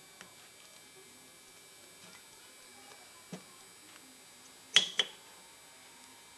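A new brake caliper with its pads being handled and wiped on a workbench: a soft knock a little over three seconds in, then two sharp clicks in quick succession about five seconds in, over a faint steady tone.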